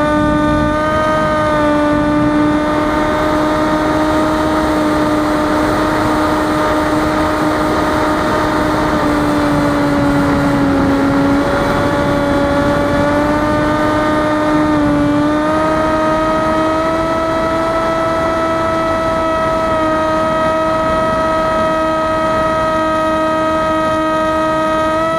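Electric motor and 6-inch propeller of an FPV flying wing running in flight: a steady pitched whine over a constant rush of air noise. The pitch dips slightly near the start, sags a little around the middle and steps up about two-thirds of the way through as the throttle changes.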